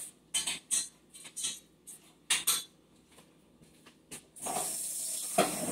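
Clinks and clatter of metal kitchenware, utensils and pot lids, handled at the stove: a run of sharp separate strikes over about four seconds. Then a steady hiss begins.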